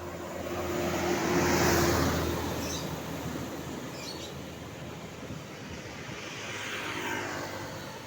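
Tour buses driving past one after another, their engine and tyre noise swelling and fading. The loudest pass is about a second and a half in, and another comes around seven seconds in.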